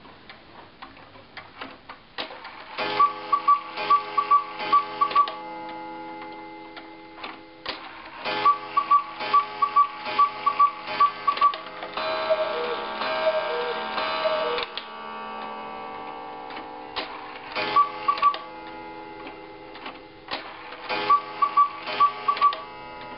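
Antique quail and cuckoo clock ticking, then calling its quarters and hour. The quail gives several groups of short paired whistled notes over ringing strikes, and midway the cuckoo calls a few times in two lower notes. The calls do not match the hands: the quail and the cuckoo are out of synchronization with them.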